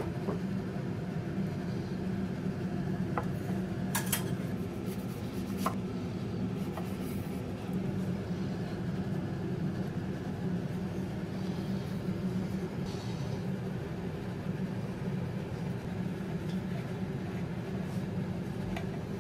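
A steady low hum, with a few light clinks of a metal serving platter and dishes being handled, about three to six seconds in.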